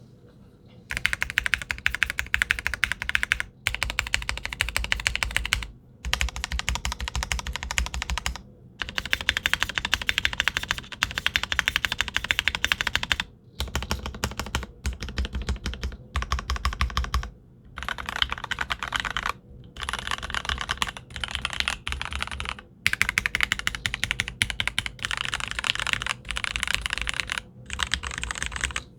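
Fast typing on a custom mechanical keyboard with lubed and filmed Gateron Milky Yellow linear switches on a POM plate, ePBT keycaps and an acrylic case: a rapid stream of keystrokes in runs of a few seconds, broken by short pauses.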